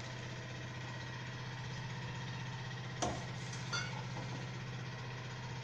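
A steady low mechanical hum, with a fine fast pulse in it, runs throughout. Two faint knocks come about three seconds in and just after, as a steel spoon touches the steel pan while stirring the gravy.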